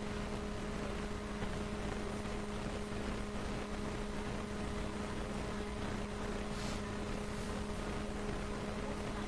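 Steady electrical hum over a low hiss: the room and sound-system background with no one speaking.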